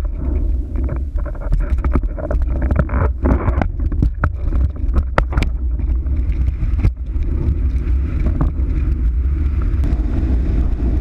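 Wind buffeting an action camera mounted on a windfoil's boom, a heavy steady low rumble, with scattered sharp clicks and knocks, most between about three and five and a half seconds in.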